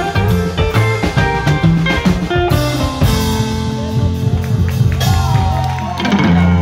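Live rockabilly trio playing: upright double bass, drum kit and electric guitar. In the second half the notes turn long and sliding.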